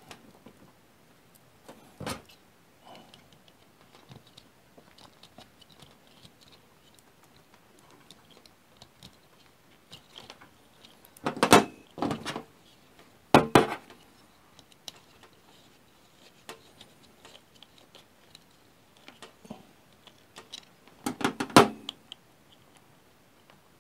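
Small metal handling sounds: a multitool, plug parts and small screws clicking and clattering on a stainless steel table, with a few louder clatters about halfway through and one more near the end.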